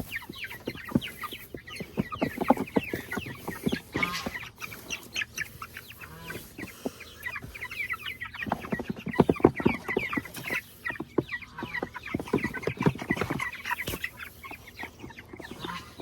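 Flock of young Cornish cross meat chickens cheeping and clucking continuously, with louder, fuller squawks around the middle and near the end. Scattered sharp knocks and rustling from the birds being handled run through it.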